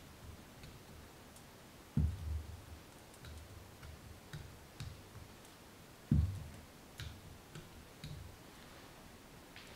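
A toothpick pricking the skin of a raw sweet potato: scattered faint small ticks, with two dull thumps, about two seconds in and again around six seconds, as the potato is handled.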